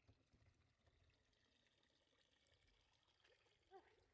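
Near silence: faint outdoor background, with a brief faint sound a little before the end.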